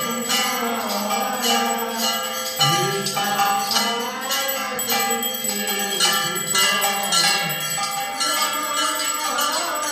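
Temple hand bell rung in a quick, even rhythm of about two to three strokes a second, its tones ringing on between strokes, as is done during an aarti lamp offering.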